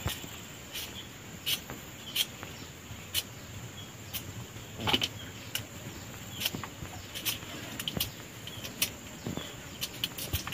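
A knife cutting young green chilies by hand, light clicks a little more than once a second, over a steady high insect buzz.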